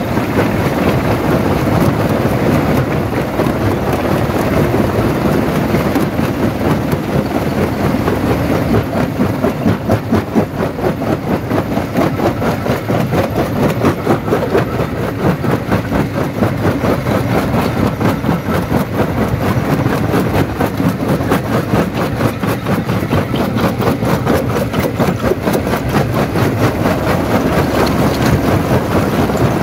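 Jaw crusher running under load: a loud, continuous clatter of stone being broken, made of dense, rapid knocks over a steady machine rumble.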